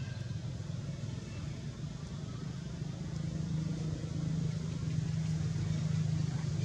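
A low, steady mechanical hum or rumble that grows a little louder about halfway through.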